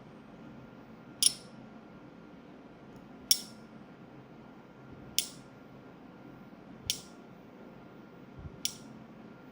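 Five sharp metallic clicks, one about every two seconds, each with a brief ring.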